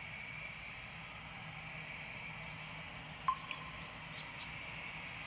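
Airbus A320 jet engines idling at a distance, a steady whine over a low hum. A single short click comes about three seconds in.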